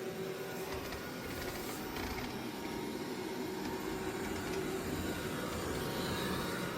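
Dreame L20 Ultra robot vacuum running: a steady mechanical hum with a faint, even whine.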